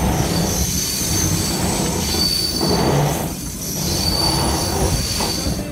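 Passenger train rolling slowly along a station platform, its steel wheels squealing in several high, thin tones that come and go over the low rumble of the running gear.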